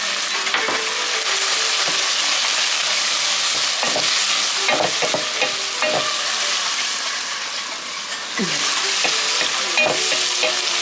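Chopped onion and peppers sizzling steadily in hot oil in a pot as they sauté, with a utensil stirring and scraping against the pot now and then.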